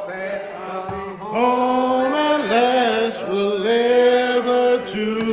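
Church congregation singing a hymn a cappella, the voices holding long notes.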